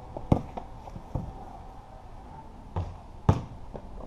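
A basketball bouncing on a hard patio: about four separate thuds, the loudest about a third of a second in and again near the end.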